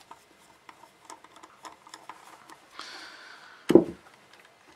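Faint light clicks and a short scraping rub of small tools and parts being handled on a work surface, then one dull thump about three-quarters of the way in.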